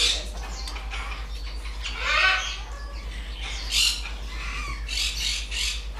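Young Timneh African grey parrot making a series of short calls while having her head scratched, the loudest a bending call about two seconds in.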